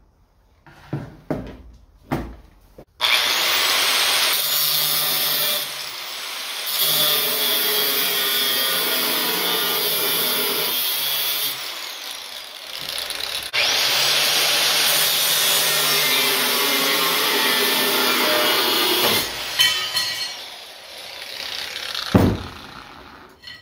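Corded angle grinder with a thin cut-off wheel cutting steel bar, its motor whining at full speed in two long runs with a short let-up and spin-up between them. A few knocks come before it starts, and a single sharp clunk comes near the end.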